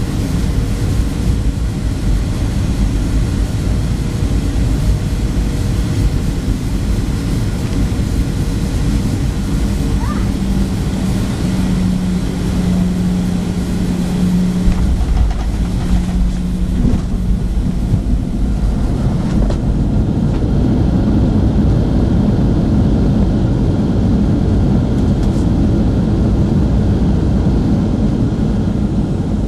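Cabin noise of a Boeing 737-700 landing and rolling out on the runway, heard from a window seat over the wing: a steady, loud rumble of its CFM56 engines, rushing air and wheels on the runway. A humming tone rises out of the rumble through the middle, and the noise swells from about two-thirds of the way through.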